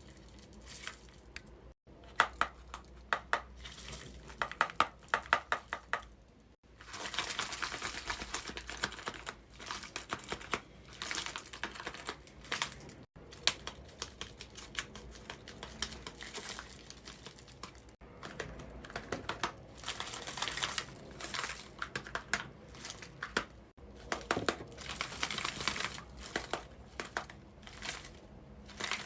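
Rapid runs of hard clicks and clacks with some crinkling, typical of a dragon puppet snapping its jaws, in several short clips with abrupt changes between them.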